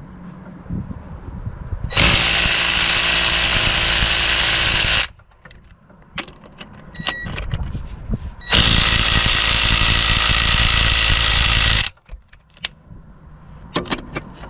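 Ryobi P263 brushed cordless 3/8-inch impact wrench run twice, each run lasting about three seconds, with quieter clicks and handling noise between the runs.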